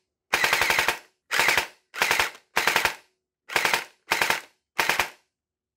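Hydro Strike Pulsar Pro gel blaster's motorized gearbox cycling in seven short bursts, each a fast run of piston strokes. The gearbox is being test-fired while the motor is backed off to set the pinion-to-bevel-gear mesh; a motor or gear whine means the motor sits too far forward.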